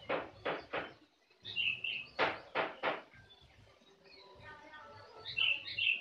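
Black-naped oriole calling in a cage. It gives short notes in quick groups of three, once near the start and again about two seconds in, with brief higher chirps between the groups and near the end.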